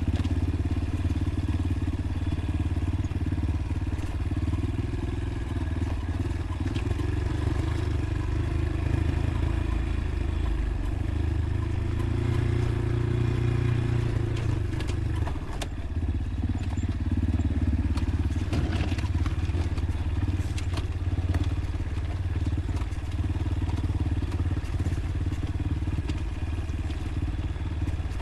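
Motorcycle engine running while under way, with a steady drone that rises a little around twelve seconds in and dips briefly near fifteen seconds. Scattered light clicks and clatter are heard over it.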